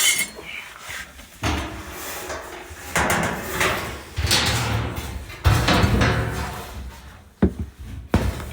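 A Whirlpool dryer's panel being handled and fitted back into place: a run of scraping and rubbing clatter, then two sharp knocks near the end.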